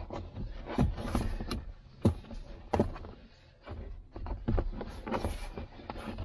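Stiff moulded rubber floor liner being shoved and pressed into place on a truck's rear floor: irregular knocks, thumps and rubbing as the centre section is worked onto its snap-in retaining points without seating.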